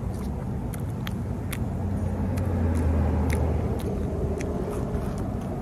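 A car engine rumbling, loudest about halfway through, with scattered small clicks and crunches of someone chewing fried jalapeno poppers.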